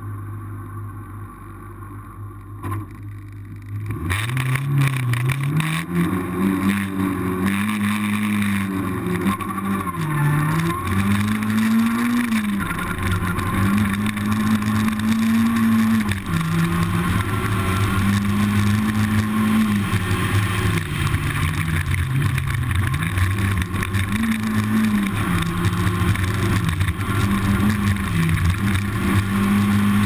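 Rally car engine at high revs, starting about four seconds in after a low steady hum. Its pitch climbs, then dips and recovers every few seconds, like gearchanges and lifts on a stage.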